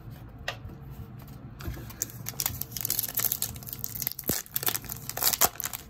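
Foil wrapper of a Magic: The Gathering booster pack crinkling as it is torn open. Irregular crackling starts about two seconds in, after a single click.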